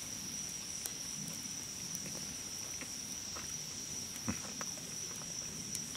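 Steady high-pitched drone of insects, with faint chewing and a few small clicks, and one short mouth smack about four seconds in.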